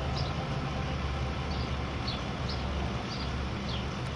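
Steady low outdoor rumble of background traffic, with short high chirps repeating about every half second.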